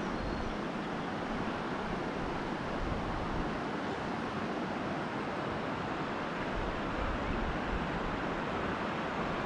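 Strong wind buffeting the microphone: a steady rushing noise with an uneven, rumbling low end.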